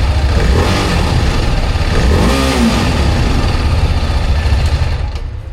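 TVS Apache RR310's single-cylinder engine running, revved up and back down about two seconds in, then quietening near the end. It makes an unusual engine noise that the owner calls not normal and that the mechanic places in the top end of the engine, at the camshafts.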